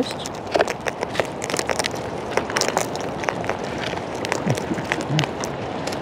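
Sulphur-crested cockatoos pecking and cracking seed from a tray on a person's lap: a rapid, irregular run of sharp clicks and crackles over a steady hiss.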